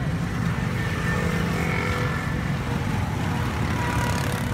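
Steady low rumble of motorbike and street traffic, with a few faint short higher tones over it.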